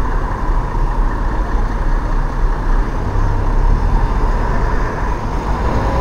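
Diesel double-decker bus engine running as the bus drives past close by, amid steady street traffic; a faint steady whine sits over the low rumble.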